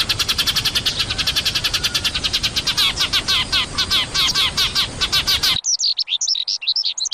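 A flock of sparrows chirping: rapid, overlapping chirps with no pause. About five and a half seconds in it cuts abruptly to a different songbird singing quick, high whistled notes.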